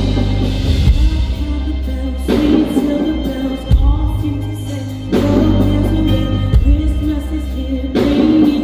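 A song with singing over heavy bass and drums.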